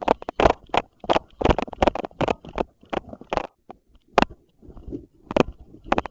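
Footsteps crunching on dry ground in an uneven walking rhythm of about two to three steps a second.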